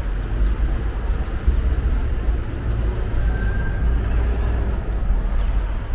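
Street ambience: a steady low rumble of road traffic, with a few faint, evenly spaced high chirps about a second in.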